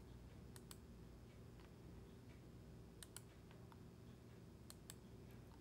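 Three faint pairs of computer mouse button clicks, each pair a quick press and release, over a low steady hum. The pairs fall about half a second in, about three seconds in, and near the end.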